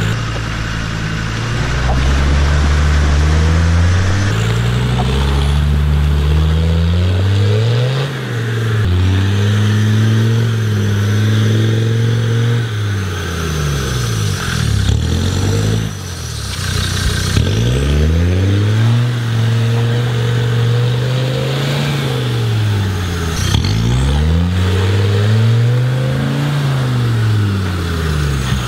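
Land Rover Defender 90's engine revving up and easing off again and again while it is driven through deep muddy ruts and a water hole. The pitch rises and falls in repeated swells, dropping low several times.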